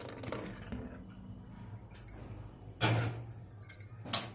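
A few sharp clinks of kitchen utensils against a dish, four in about two seconds, as whisked curd is poured into a cooking pot.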